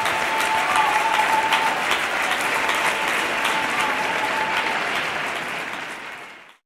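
Audience applauding: a dense patter of clapping, with a thin steady tone running under it until about five seconds in. The applause fades out just before the end.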